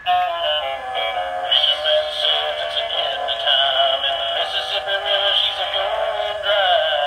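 Gemmy 'Dog Gone Fishing' animated toy truck playing its built-in song with singing through its small speaker, starting the moment its button is pressed. The sound is thin and tinny, with no bass.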